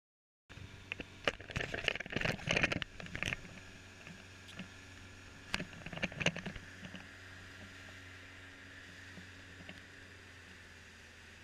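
Motorboat under way on open water: a steady engine hum, with loud bursts of splashing and rushing water noise in the first few seconds and again about six seconds in, then an even hum.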